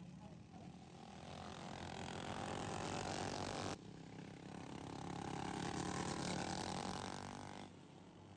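Racing lawn mower engines running hard, the engine note swelling louder, then breaking off abruptly about four seconds in and building again before dipping near the end.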